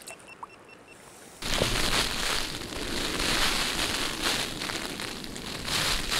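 Heavy rain hitting the fabric of an Exped Vela UL1 tent, heard from inside as a dense, even patter. It starts abruptly about a second and a half in, after a quiet opening.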